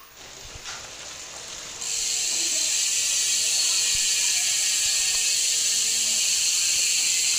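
Bicycle freehub on a Retrosprec aluminium-alloy hub buzzing as the wheel freewheels, the pawls ratcheting too fast to hear single clicks. It starts faint and gets much louder and steady about two seconds in.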